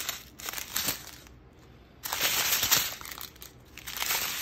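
Small plastic bags of square resin diamond-painting drills being handled, the plastic crinkling and the tiny drills rattling inside, in three short bursts.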